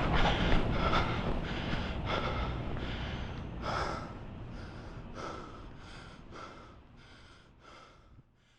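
A person panting, about two breaths a second, with a low rumble underneath in the first half; both fade away and stop shortly before the end.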